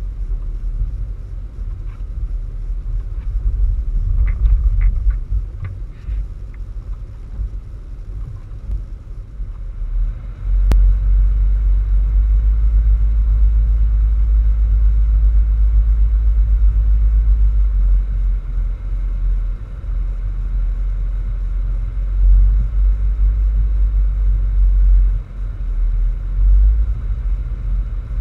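Wind buffeting the microphone in a snowstorm: a deep, uneven rumble that gets louder about ten seconds in, with a few faint ticks early.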